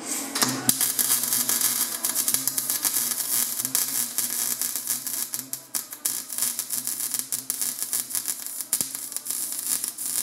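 Wire-feed welder arc crackling steadily as it welds a steel exhaust pipe joint, starting about half a second in, over a low steady hum.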